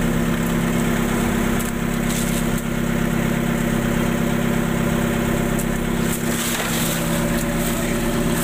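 A small engine running steadily at one even speed, a constant droning hum with a few faint knocks over it.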